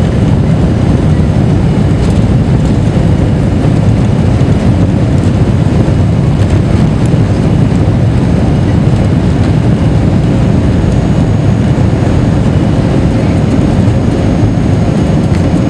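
Airbus A330 twin-engine jet on its takeoff roll, heard from inside the cabin: engines at takeoff thrust and wheel rumble blend into a loud, steady, deep noise.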